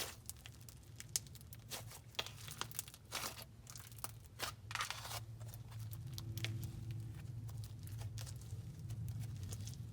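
Spotted icing slime worked by hand: a run of small sticky crackles and pops, busiest in the first half, over a steady low hum.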